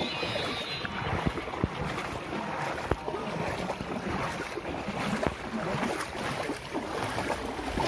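Floodwater sloshing and splashing irregularly as someone wades through it, with some wind noise on the microphone.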